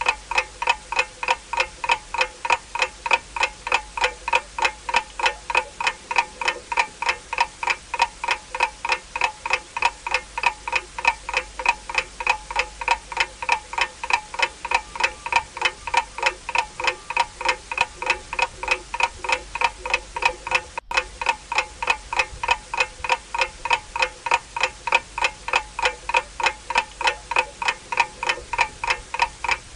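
Ticking clock sound effect: a steady run of evenly spaced, ringing ticks, about three a second.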